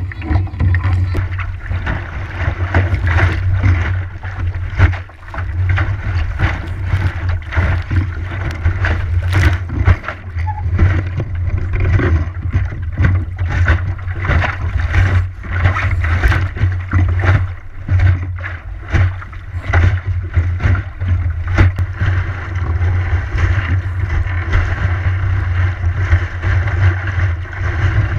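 Wind buffeting the microphone of a camera fixed on an Optimist sailing dinghy under way, with water rushing past and slapping irregularly against the small hull as it crosses the chop.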